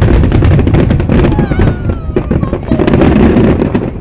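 Fireworks display going off in a dense, continuous barrage: deep booms of shells bursting under rapid crackling reports.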